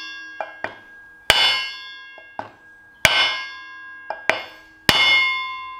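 A mallet striking a block of wood set on a steel pivot bush, driving the oiled bush into the front axle beam of a Ferguson TED20 tractor; the bush is going in nicely. Three heavy blows about two seconds apart, each leaving the metal ringing, with a few lighter taps between.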